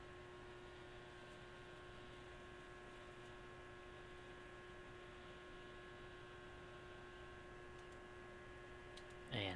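Faint, steady electrical hum made of several steady tones, with a short louder sound near the end.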